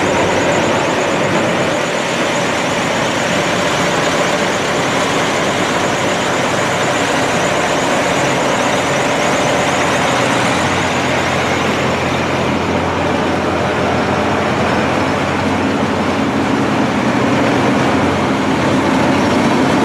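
Case IH Steiger four-wheel-drive tractor's diesel engine running steadily, with a deeper low hum growing stronger about ten seconds in.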